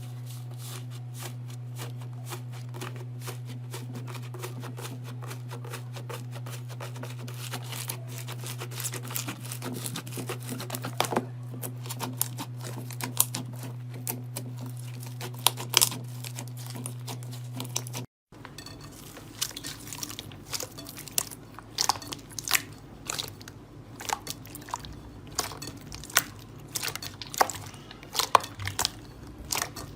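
Slime being squeezed and pressed by hand, a dense run of crackling, popping clicks over a steady low hum. About two-thirds of the way through it cuts abruptly to another slime clip with sparser, sharper crunchy pops.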